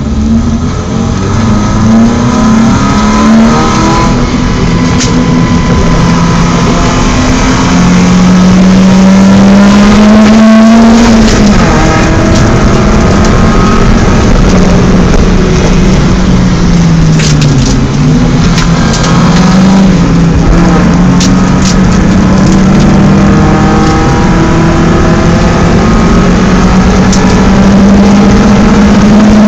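BMW 318is four-cylinder engine driven hard on a race track, its revs climbing steadily through each gear and falling back at shifts and braking several times, over constant road and wind noise.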